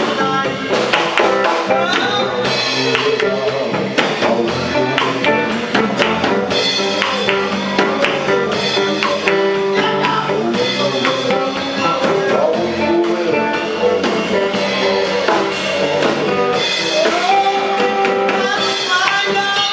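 Live band playing an African dance medley: electric guitar over a drum kit keeping a steady beat.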